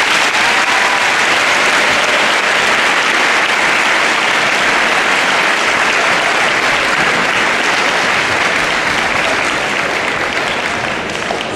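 Large audience applauding, steady clapping that eases off slightly near the end.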